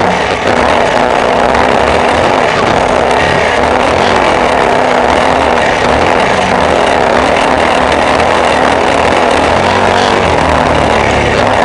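Off-road vehicle driving with its engine running steadily, under a constant loud rushing noise.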